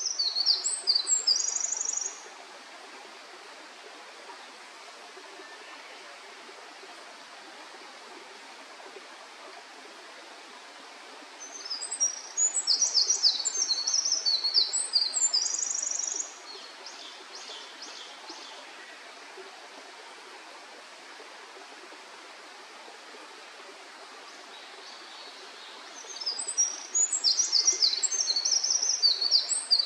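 Eurasian wren singing: three bursts of its long, rapid, high-pitched song packed with trills, one ending about two seconds in, one in the middle and one starting near the end, over a steady background hiss.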